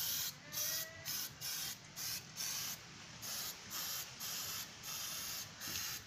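Aerosol spray paint can hissing in short, repeated bursts, about two a second, as a coat of paint is sprayed on.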